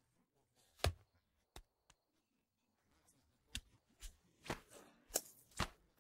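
About seven short, sharp knocks and taps, spaced unevenly, with near silence between them: film sound effects of peaches dropping onto rocky ground and quick kung fu movements, with no dialogue or music.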